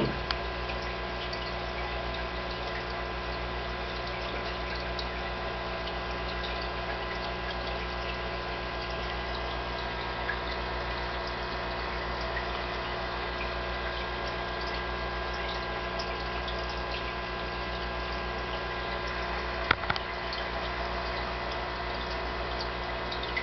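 Aquarium pump running: a steady hum with several constant tones under a watery hiss, with one short click near the end.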